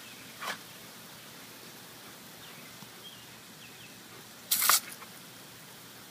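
Garden hose spray nozzle hissing steadily as a jet of water sprays across the lawn. There is a short, loud burst of spray noise about four and a half seconds in and a fainter one near the start.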